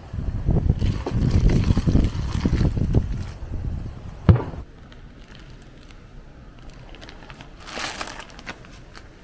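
A hard-sided ice cooler being opened and handled, with low rumbling, small knocks and one sharp knock about four seconds in. Near the end, plastic vacuum-packed food bags crinkle briefly.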